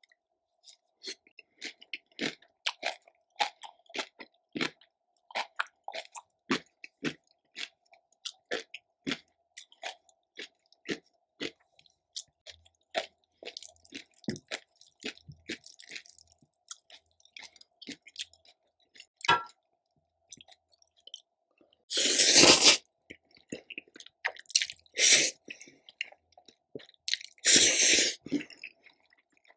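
Close-miked chewing with many crisp crunches and wet mouth clicks, typical of eating crunchy cabbage kimchi. About two-thirds of the way in and again near the end come two loud rushing bursts, each under a second.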